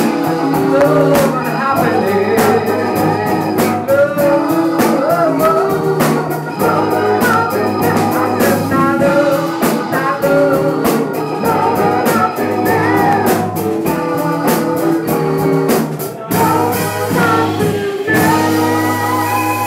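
Live band playing a soul-funk song: electric guitar, keyboards, electric bass and drum kit behind a male lead voice singing. Near the end the drumming thins out and the band holds long sustained chords.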